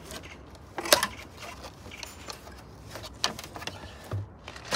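Scattered clicks and knocks of an opened all-in-one Mac's metal chassis and loose internal parts being handled and tilted, with one sharper knock about a second in and a small cluster of clicks around three seconds in.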